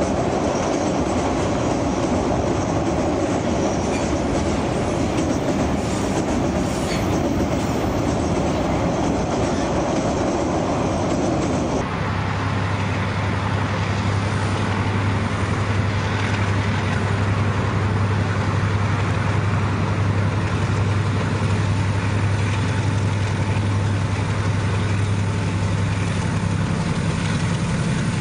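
Freight train wagons rolling past, a steady rumble of wheels on rail. About twelve seconds in it gives way to the steady low hum of diesel-electric locomotives hauling a container freight train.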